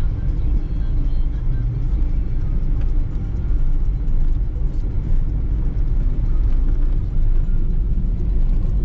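Steady low rumble of tyre and engine noise heard inside the cabin of a moving car.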